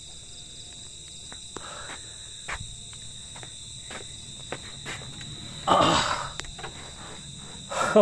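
Crickets chirring in a steady high-pitched night chorus, with a short louder noise about six seconds in.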